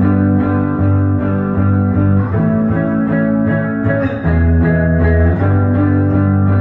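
Four-string semi-hollow electric guitar played in a slow line of held, ringing notes that change about once a second, with a strong low register.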